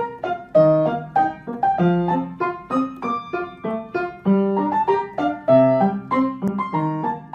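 Background piano music: a quick, light run of separate notes, several a second.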